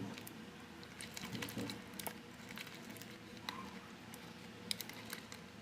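Glue-based slime being stirred in a container as borax activator sets it, giving irregular wet squishes and small sticky clicks as it thickens.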